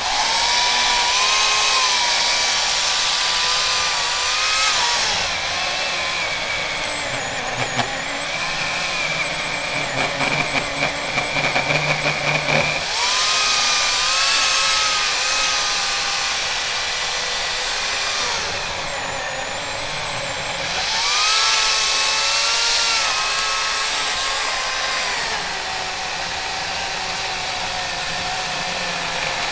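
Electric chainsaw with an 18-inch bar cutting through a 20-inch silver maple trunk. The motor's whine starts abruptly, sags in pitch as the chain bogs into the wood and climbs again each time the load eases, several times over.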